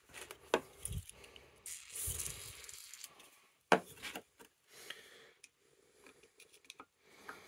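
A WD-40 aerosol can and hand tools handled on a workbench: small clicks and knocks, a brief hiss about two seconds in, and one sharp clack nearly four seconds in as the pliers are taken up.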